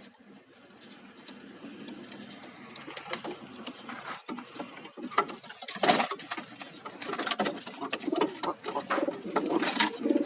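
Domestic pigeon cooing, a low rolling coo that builds up and grows louder toward the end, with no coughing: the bird has recovered from a cough after a dose of Tetra Chlor. Sharp clicks and taps come through, loudest about six seconds in.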